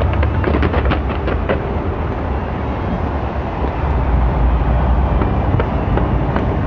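Fireworks going off in a large display: a continuous heavy rumble of booms, with rapid sharp crackling pops during the first second and a half and again near the end.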